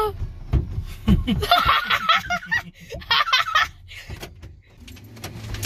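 Children laughing in short breathy bursts that die down near the end, over the low hum of the car they are riding in.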